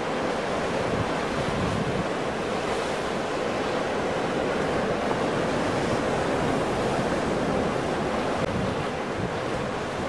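Ocean surf: a steady, dense rush of large waves breaking, with wind rumbling on the microphone.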